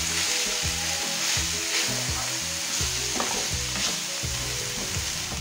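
Blanched broccoli florets and diced red onion sizzling in hot oil in a frying pan, a steady hiss, while a spatula stirs and turns them with a few short scrapes.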